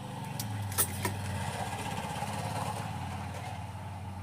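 An engine running steadily, swelling up and then slowly fading, with two sharp clicks about a second in.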